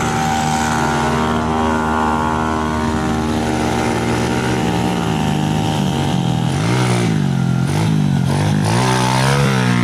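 Pit bike engine running, steady at first, then rising and falling in pitch several times in the last few seconds as the throttle is worked.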